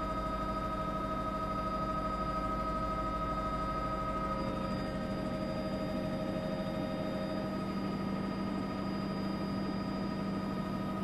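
Steady helicopter cabin noise: a constant drone with several steady whining tones over a low hum, and the higher whine fading a little partway through.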